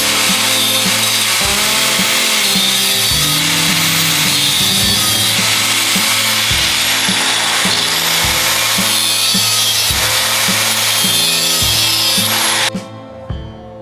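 Power tool grinding metal: a loud, steady grinding hiss with a faint high whine that sags and recovers midway, stopping suddenly near the end. Background music plays underneath.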